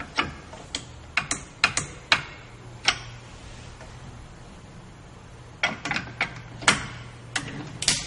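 Sharp metallic clicks and clacks as a hydraulic multi connector, with its quick couplers, is handled and locked onto a loader's coupling plate. The clicks come in two bursts with a quieter gap of two to three seconds between them, over a steady low hum.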